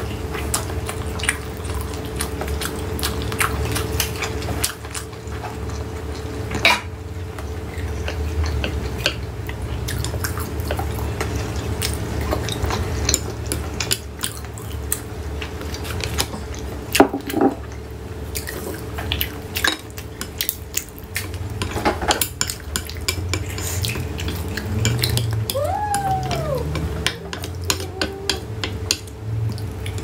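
Close-up eating sounds: wet chewing and mouth clicks as spicy boneless chicken feet and dumplings are eaten, with chopsticks and a wooden spoon tapping and scraping a glass plate, over a steady low hum. A short squeak rises and falls twice near the end.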